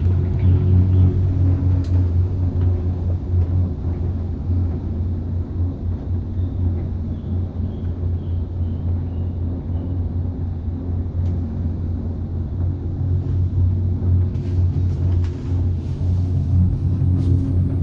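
Steady low rumble of a cableway gondola cabin in motion along its cable, with a few faint clicks near the end.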